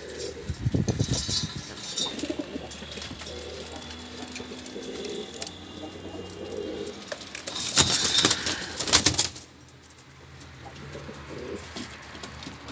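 Kirkukli pigeons cooing repeatedly, with a loud rustling burst about eight seconds in and a shorter one about a second in.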